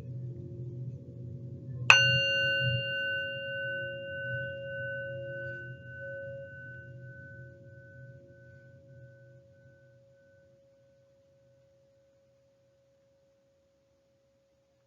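A meditation bell or chime struck once about two seconds in, ringing with a clear, bell-like tone that fades away over about eight seconds. Before the strike, a fainter low ringing from an earlier strike is dying away.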